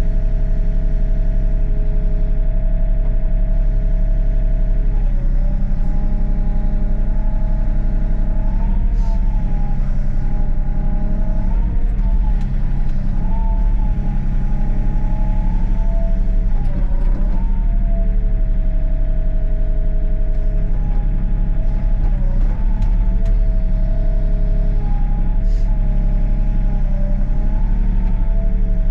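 Excavator diesel engine running steadily under hydraulic load, with a whine that wavers in pitch each time the boom and dipper are moved.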